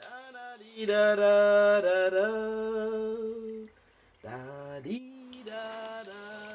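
A voice singing a slow melody in long held notes that step up and down in pitch, with a short break about four seconds in before it starts again on a rising note.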